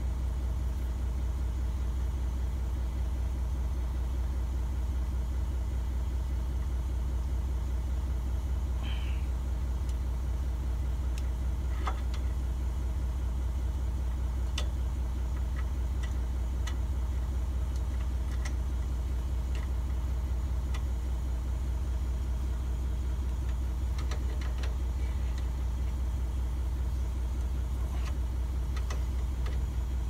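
An engine idling steadily, a constant low hum. Over it come scattered light clicks and taps as small metal parts of the track roller and its bolt are handled.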